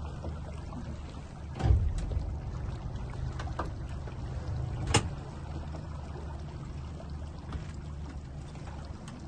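Small wooden motorboat's engine running at idle, a steady low hum, with two knocks on the boat, one about two seconds in and a sharper one about five seconds in.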